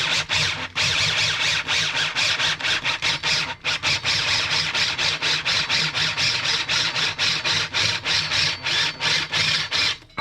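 Electric drill boring through a steel bracket with an oiled metal drill bit: a steady grinding whir with a low motor hum, pulsing about four to five times a second, stopping just before the end.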